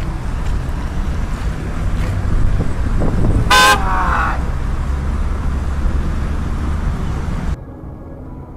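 A car horn honks once, briefly, about three and a half seconds in, over a steady rumble of traffic and engines. The rumble drops away suddenly near the end.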